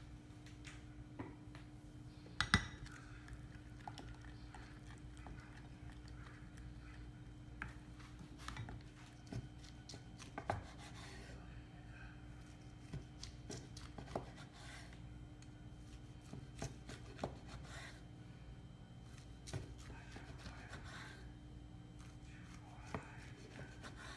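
Kitchen prep sounds: scattered, irregular knocks and clicks of a knife and utensils on a cutting board and dishes, the loudest about two and a half seconds in, over a steady low hum.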